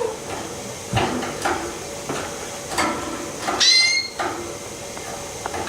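Pet bird in its cage giving one high chirp about three and a half seconds in, among light clicks and taps.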